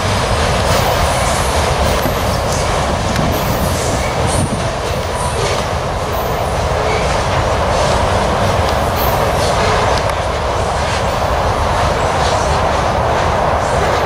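Covered hopper cars of a freight train rolling along the rails: a loud, steady noise of steel wheels on track, with brief high wheel squeals now and then.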